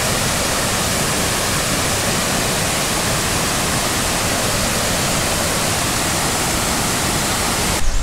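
Aysgarth Falls on the River Ure: the steady rush of water pouring over the falls' rock steps. It cuts off abruptly near the end.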